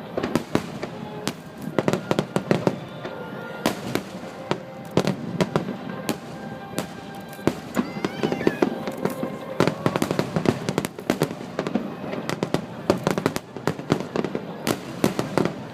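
Fireworks display: a rapid, continuous series of shell bursts and crackles, with music playing along.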